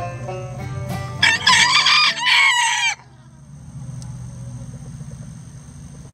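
A banjo tune runs for the first second or so, then a rooster gives one loud crow in two parts, lasting under two seconds. Quieter background noise follows.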